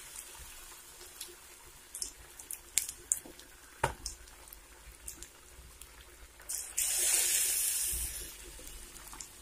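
Egg bajjis deep-frying in hot oil in a steel kadai: a faint sizzle with scattered pops and clicks, one sharper than the rest just before four seconds in. About six and a half seconds in, the sizzle swells into a louder rush for a second or two as the pieces are turned with a spoon.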